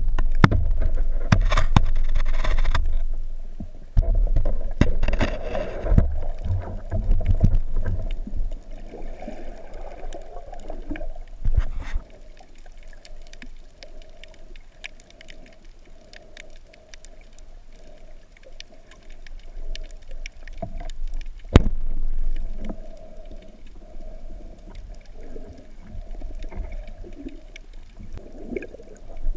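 Water heard through an action camera's waterproof housing: heavy muffled churning and splashing at the surface for the first several seconds, then a quieter underwater hiss with a couple of sharp clicks.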